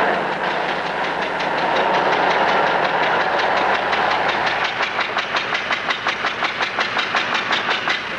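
Old car's engine and body running with a loud, steady rush, joined from about halfway by a regular clatter of about four knocks a second.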